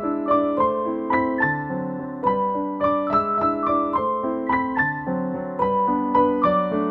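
Background piano music: a gentle melody of struck notes, a few each second, over lower chords.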